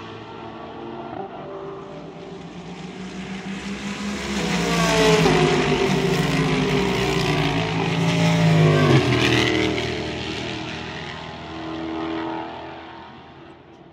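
An IMSA race car's engine building up as it approaches and racing past, loudest from about five to nine seconds in. Its pitch drops as it goes by, then the sound fades away, with a smaller swell near the end.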